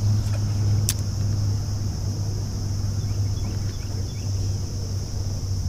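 Electric trolling motor running with a steady low hum, under a constant high drone. A single sharp click comes about a second in.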